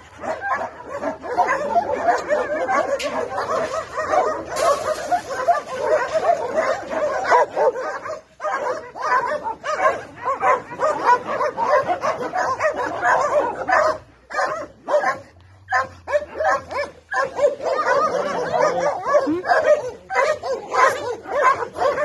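Several dogs barking and yipping at once in a dense, overlapping din, with brief lulls about eight seconds in and around fourteen seconds in.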